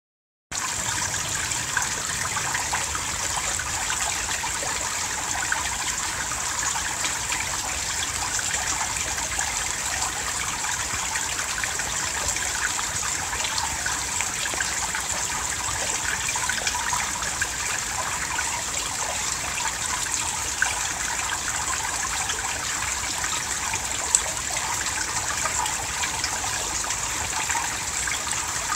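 Small rain-fed forest stream trickling steadily, after a brief silent gap at the start.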